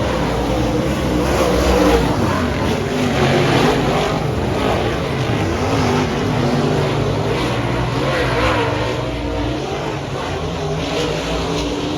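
Several dirt-track race car engines running at speed around the track at once, their pitch rising and falling.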